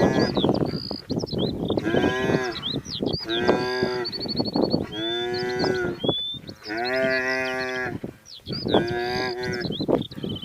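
A wildebeest bawling in distress, about six long moo-like cries a second or two apart, as hyenas bring it down. Short high bird chirps sound throughout.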